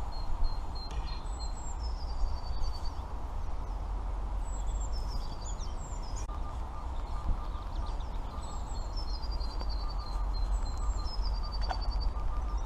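Small birds singing: high chirping phrases that drop in pitch and end in a quick run of repeated notes, coming back every few seconds, over a steady low rumble.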